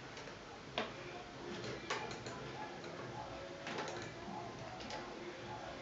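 A few light, irregular metallic clicks from a hand-cranked Stoewer transverse shuttle sewing machine as its mechanism is handled and adjusted by hand.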